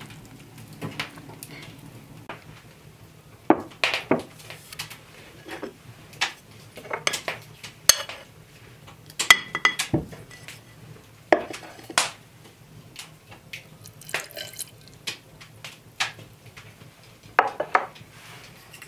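Kitchenware clinking and knocking in a string of separate taps: a pewter plate and redware earthenware pot being handled, one knock with a brief metallic ring about nine seconds in.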